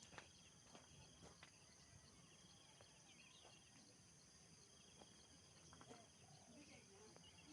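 Near silence: faint outdoor ambience of steady insect chirring, with a few faint bird calls and small clicks.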